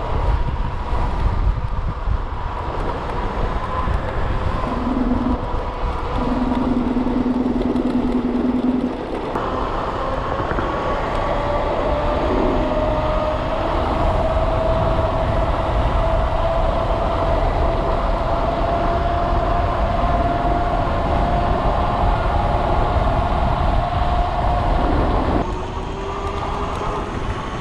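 Dualtron Thunder electric scooter on the move: wind on the microphone and road rumble, with a thin motor whine rising slowly in pitch through the middle. A short steady low tone sounds between about five and nine seconds in.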